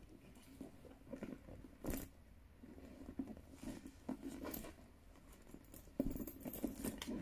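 Faint rustling and light knocks from a Louis Vuitton NéoNoé monogram canvas bucket bag being handled, with a sharper click about two seconds in and a louder cluster of knocks and rustles near the end.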